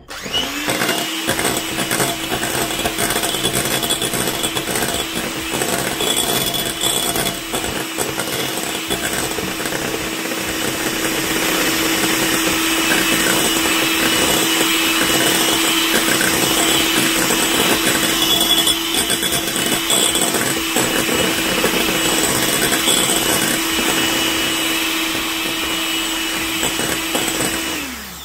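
Electric hand mixer running steadily, its twin wire beaters whisking a runny egg-and-sugar mixture in a glass bowl. The motor spins up at the start and winds down near the end.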